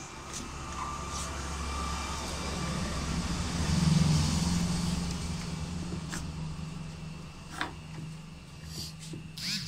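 Clicks and rubbing of hard plastic parts being handled and worked loose at the end of a photocopier drum unit, over a low rumble that swells for about four seconds and then fades.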